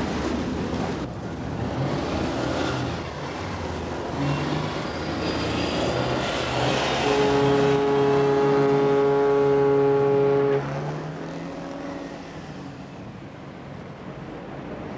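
Citroën 2CV driving along a street, its engine running. About halfway through, a loud steady drone is held for about three seconds and then stops suddenly.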